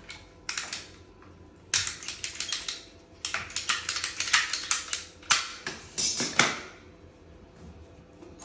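Hand ratchet PER pipe cutter clicking in quick runs of sharp clicks as it is squeezed through a blue PER water pipe, the clicks coming thickest a few seconds in and stopping once the pipe is cut, about two-thirds of the way through.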